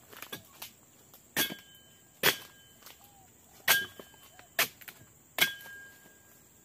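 Steel harvesting chisel (dodos) on a long pole chopping into the frond bases of an oil palm trunk. Five sharp strikes come about a second apart, most with a brief metallic ring.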